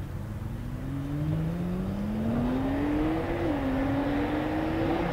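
Nissan R35 GT-R's twin-turbo V6, tuned with aftermarket downpipes and turbos, accelerating hard with its pitch rising. The note drops once about three and a half seconds in as it shifts up, then climbs again as the car comes closer.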